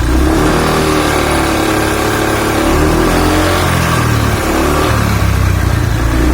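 Honda Vario scooter engine revved several times, its pitch rising and falling with the throttle, over a deep growling, snoring rumble that resonates. This is the fault noise that comes on when throttled though not at idle, even though the CVT has been checked.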